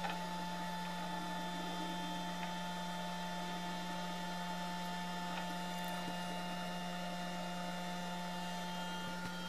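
Laser light show projector's small beam-scanner motor running at slow speed, giving a steady low hum with fainter steady higher tones above it.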